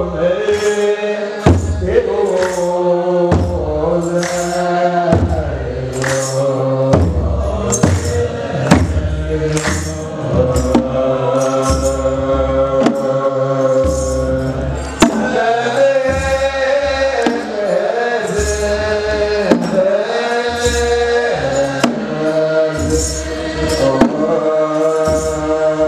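Eritrean Orthodox Tewahedo liturgical chant (mezmur): a group of men chanting in unison over microphones, with a large kebero drum struck in a slow steady beat of about one stroke a second and sistrum-like jingling in time with it.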